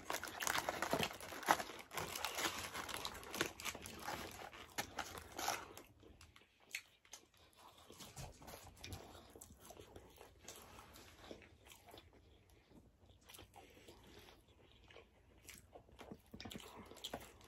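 Close-up eating sounds: fast food (burgers, fries, chicken wings) being bitten, crunched and chewed. Dense crunching and chewing over the first six seconds or so, then sparser, quieter chewing.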